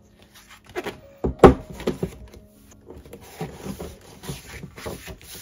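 Pages of a thick photo book being turned and handled, with paper rustling throughout and a loud thump about a second and a half in as the book is moved.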